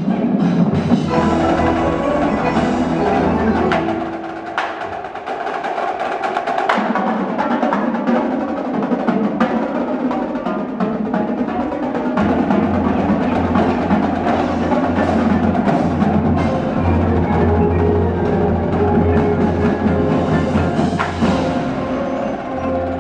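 Percussion ensemble playing a piece of drums, wood block and mallet instruments such as marimba, with many sharp strikes over pitched notes.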